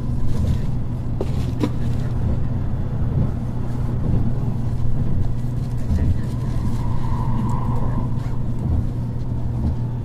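Cabin running noise of an N700A Shinkansen train in motion: a steady low rumble from the wheels and running gear, with a couple of faint clicks about a second and a half in.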